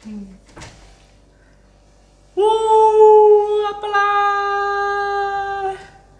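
A high sung "aah" note held for about three and a half seconds, steady in pitch and sinking slightly before it stops, starting a little after two seconds in.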